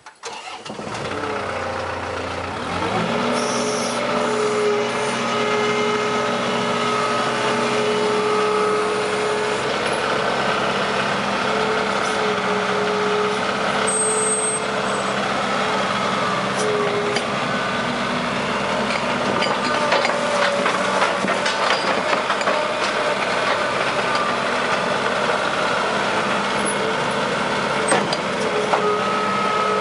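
New Holland LX665 skid steer's turbo diesel engine starting and coming up to speed over the first few seconds, then running steadily. Scattered clicks and rattles come in the second half.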